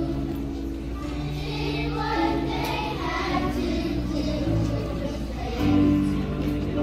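Children's choir singing a song, with long held notes of an accompaniment underneath.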